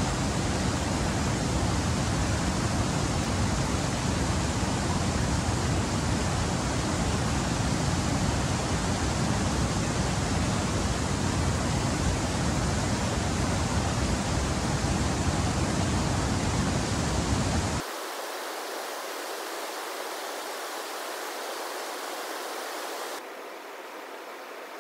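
Steady rush of river rapids. About 18 s in it changes abruptly to a thinner, quieter rush with the deep rumble gone, and it drops again a little before the end.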